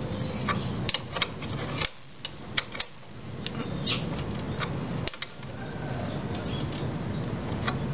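Irregular sharp metal clicks and clinks of a ring spanner working a motorcycle's rear axle nut as it is tightened, over a steady low hum.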